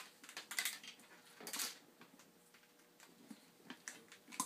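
Faint, irregular plastic clicks and rustles of hands handling an endotracheal tube seated in an airway manikin's mouth.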